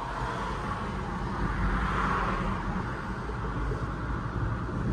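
Steady rumble of a car's engine and road noise heard from inside the moving car, with traffic running on the road alongside; the noise swells a little about two seconds in.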